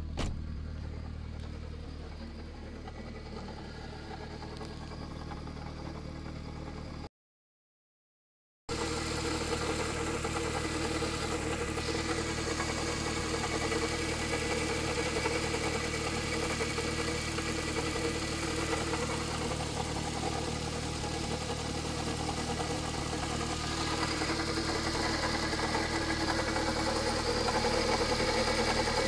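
Car engine idling with a rattling (karakara) noise from the engine bay, the sign of a failing air-conditioning compressor gradually broken down by an oil leak. It stops for about a second and a half early on, then comes back louder.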